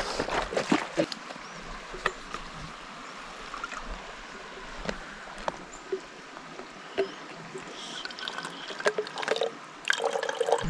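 Filtered water trickling from a Katadyn BeFree soft squeeze flask through its filter cap into a hard plastic water bottle, with short clicks from handling the flask and bottle. A river flows steadily in the background.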